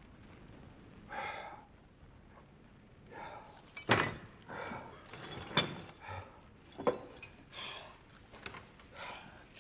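Tableware clinking and knocking on a table: a few sharp, separate clinks of goblets and dishes.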